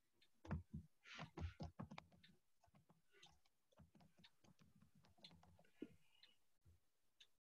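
Near silence: room tone with faint scattered clicks and soft knocks, a quick cluster in the first two seconds, then sparser.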